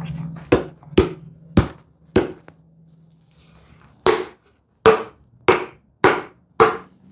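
A mallet knocking on the dovetail joints of a wooden drawer: four sharp knocks in the first two seconds, then five more starting about four seconds in, each roughly half a second apart.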